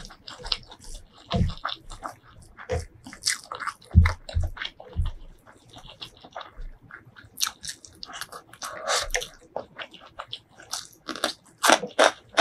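Close-miked eating: crisp, irregular crunching bites and chewing of food.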